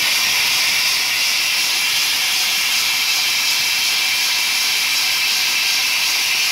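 Dry ice blasting machine blowing a steady jet of compressed air out through its blast gun: a loud, even hiss.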